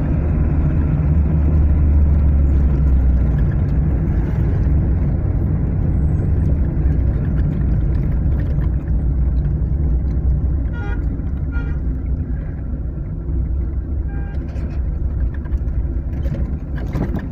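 Interior noise of an IZh-2126 Oda hatchback on the move: steady engine and road rumble. Around the middle come three short squeaks, which fit the fifth door creaking on its worn lock pin. There is a sharp click near the end.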